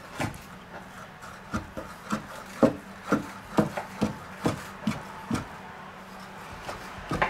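Chef's knife chopping diced pancetta on a wooden cutting board: irregular knocks of the blade against the board, about two a second, with a brief pause and then a sharper knock near the end.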